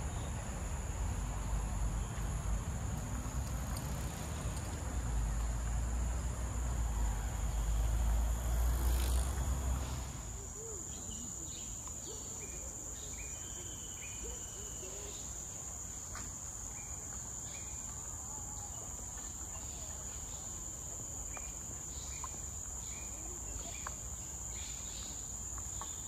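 Steady high-pitched drone of insects in tropical woodland, with a low rumble under it that drops away about ten seconds in. Scattered short bird chirps follow.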